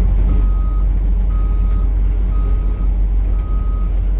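Heavy equipment backup alarm beeping at a steady single pitch, four beeps about once a second, over a diesel engine running low and steady.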